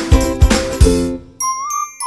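Upbeat background music with a steady beat that breaks off a little over a second in, followed by a bright chiming jingle.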